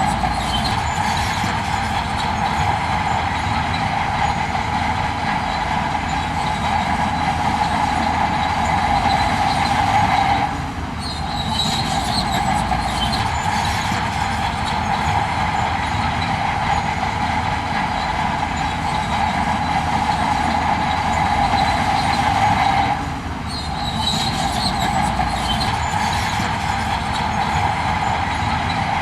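Heavy earthmoving machinery working: steady engine noise with a continuous high squealing whine. It dips briefly about ten seconds in and again a little past twenty seconds.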